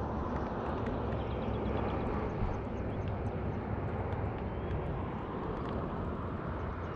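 Steady rushing noise of water against an action camera held under water beside a kayak, strongest in the low range, with faint scattered ticks.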